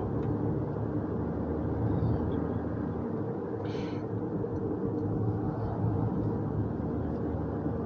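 Steady road and tyre noise with a low hum inside the cabin of a hybrid car driving along. A brief faint hiss about four seconds in.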